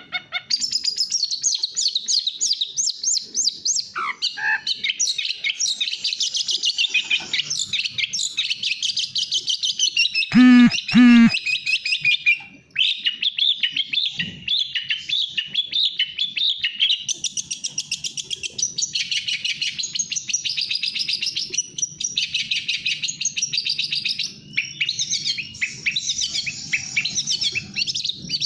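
Long-tailed shrike singing a fast, dense, near-continuous stream of chattering trills, with two loud harsh notes about ten seconds in.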